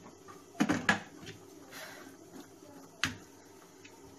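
Kitchenware knocking in a stainless steel sink while boiled pasta drains in a plastic colander: a quick cluster of three sharp knocks a little under a second in, and one more about three seconds in.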